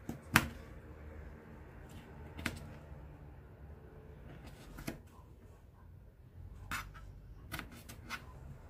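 Kitchen knife cutting through tomato and tapping down on a plastic cutting board: a sharp tap every second or two, the loudest just after the start, with a quicker run of taps near the end.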